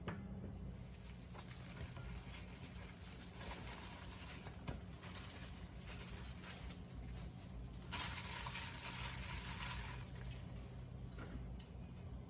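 Hands mixing and tossing sliced pickled cucumber with seasoning in a bowl: a soft, wet, crackling patter with small clicks, busiest about eight to ten seconds in.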